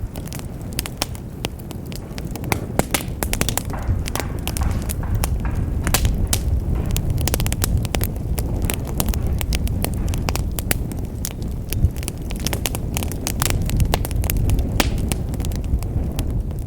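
Wood fire in a fireplace crackling, with many sharp irregular pops and snaps over a steady low rumble of the burning logs.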